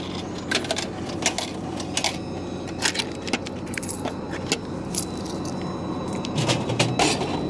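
Irregular light metallic clicks and jingling of coins being handled while paying at a food vending machine.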